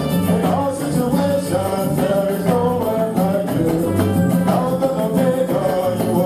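Music with singing and a steady beat, with light rattling percussion such as tambourine.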